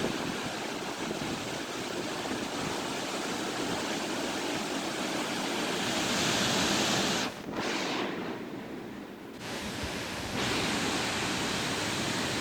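Tropical-storm wind blowing hard, a steady rushing noise that thins out for a couple of seconds past the middle and then comes back.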